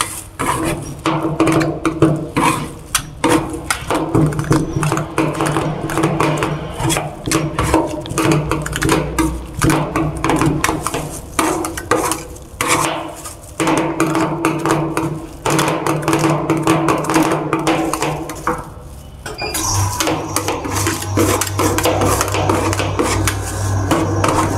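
Two metal spatulas chopping and scraping watermelon and milk on the frozen steel plate of a rolled-ice-cream machine: a fast, uneven clatter of metal tapping on metal. A steady low hum runs underneath, and a deeper hum joins near the end.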